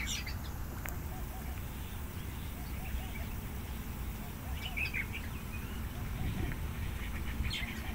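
Outdoor lakeside ambience: a steady low rumble with faint, indistinct voices, and brief bird chirps about a second in, around five seconds and near the end.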